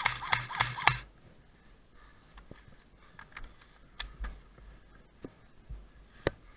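Airsoft guns firing: a quick string of about six shots at roughly five a second at the start, then a few isolated sharp snaps, the loudest near the end.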